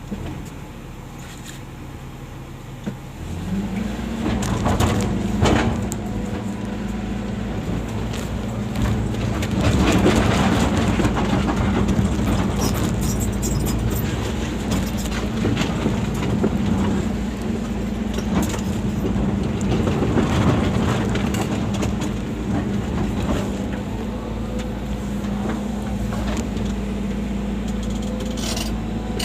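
Volvo excavator's diesel engine idling low, then revving up about three seconds in and running steadily at working speed. Scattered knocks and scrapes sound over it, loudest around five and ten seconds in.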